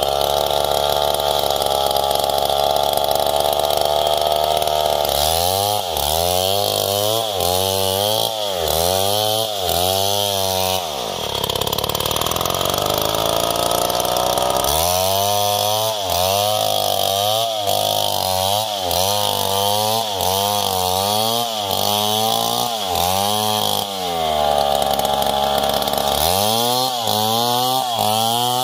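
Stihl 070 two-stroke chainsaw ripping a coconut palm log lengthwise into planks. It runs at steady high revs at first, then its engine speed swings up and down over and over, about three times every two seconds. There is a steadier, lower-pitched stretch in the middle and another steady high stretch near the end.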